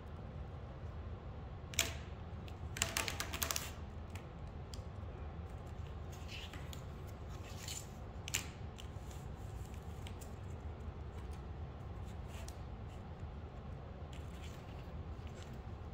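3D-printed plastic folding yardstick being unfolded by hand: its print-in-place hinged segments click and clatter, with a quick run of clicks about three seconds in and a few single clicks later, over a low steady hum.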